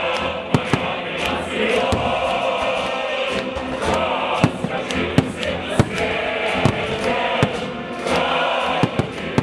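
Choral music playing steadily, with about eight or nine sharp firework bangs scattered through it.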